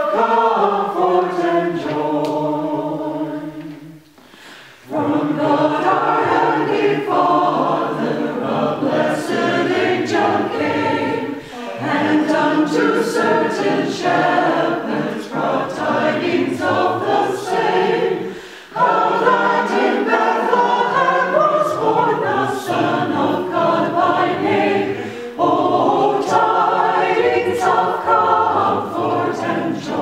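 Mixed choir of men's and women's voices singing a Christmas carol in phrases, with a brief pause for breath about four seconds in and short breaks between later phrases.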